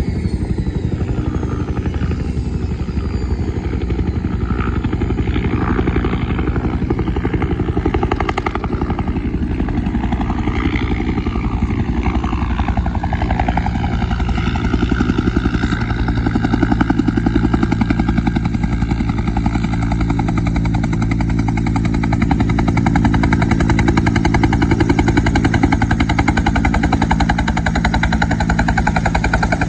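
Bell UH-1 Huey helicopter on approach to land, its two-bladed main rotor beating in a fast, steady pulse under a turbine whine. A high whine falls in pitch in the first few seconds, and the sound grows a little louder in the second half.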